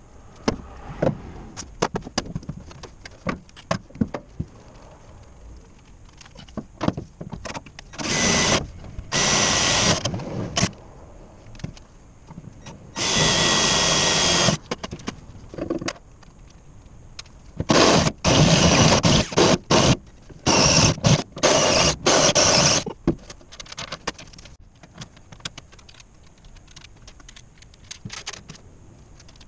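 Cordless drill boring into the metal body panel, run in several bursts of a few seconds each with a steady motor whine, with light clicks and knocks of handling tools and parts between them.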